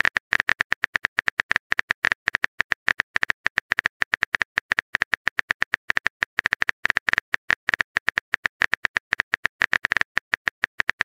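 Phone keyboard typing sound effect: a rapid, slightly irregular run of small sharp clicks, about seven a second, marking a text message being typed.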